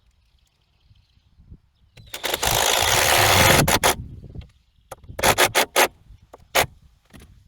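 A deck screw driven into wood with a power driver: one long run of about a second and a half, then a quick series of short bursts as the screw is snugged down with a fender washer.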